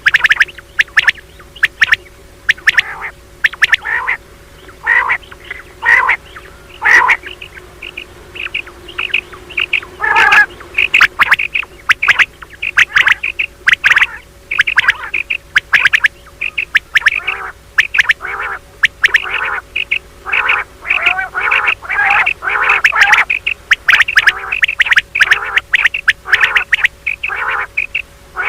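Female common quail giving a mating call: short calls repeated rapidly and irregularly throughout, over a faint steady hum.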